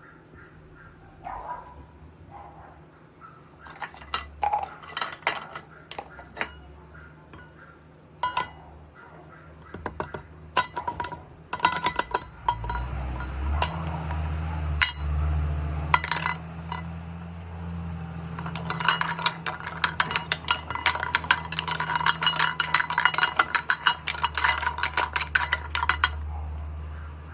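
Hard objects clinking and tapping, like metal or dishes knocked together. A steady low hum comes in about halfway through, and near the end there is a fast, dense run of clinks.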